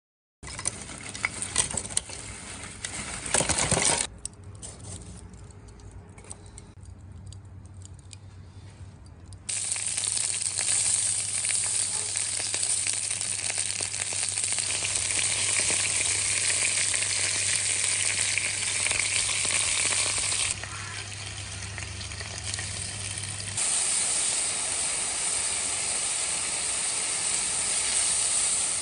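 Steak and vegetables sizzling on a hot grill, a loud steady hiss from about ten seconds in that drops and returns at abrupt cuts. In the first few seconds there are sharp knocks and clatter, then a quieter stretch before the sizzle starts.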